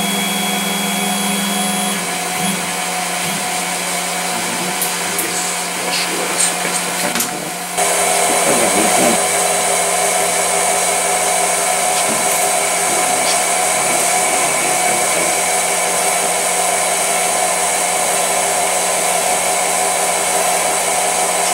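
Small EMCO CNC lathe running with a steady whir from its turning spindle and drives. About eight seconds in the sound steps up louder, with a stronger hiss, and then holds steady.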